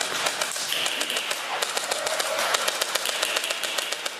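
Airsoft electric guns firing rapid full-auto bursts: a dense run of sharp clicks with a high, steady whine through most of it.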